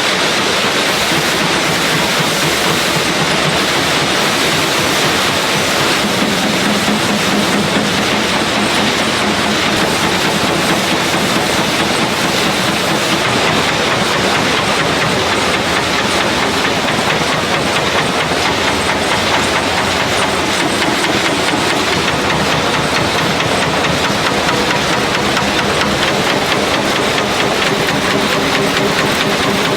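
Factory production machinery running steadily: an even mechanical clatter with a fast rattle, and a low hum that comes in about six seconds in.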